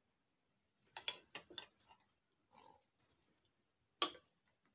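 Light clicks and taps of a metal fork and spoon against ceramic bowls and taco shells as toppings are spooned onto tacos: a quick run of small clicks about a second in and one sharp click near the end.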